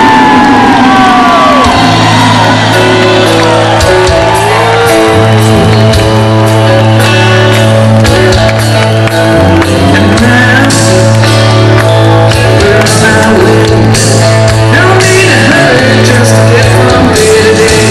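Loud live rock music from a band: sustained bass notes under guitars, with a singing voice. A pitch slides downward near the start.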